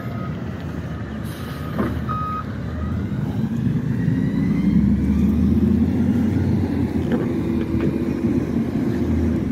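Backup alarm of a Peterbilt McNeilus front-loader garbage truck beeping for the first couple of seconds, then the truck's diesel-style engine revving up as it pulls away, growing louder about three seconds in with its pitch rising slowly.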